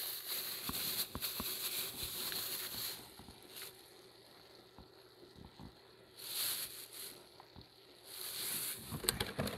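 Large paella pan of rice and broth simmering over a fire, giving a faint crackling and bubbling hiss full of small ticks. It fades about three seconds in, and there are two short rushes of hiss later on.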